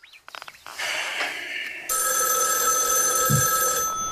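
Telephone ringing: an electronic ring starts about a second in and grows stronger near the two-second mark, holding steady until just before the end. A few light clicks come just before it.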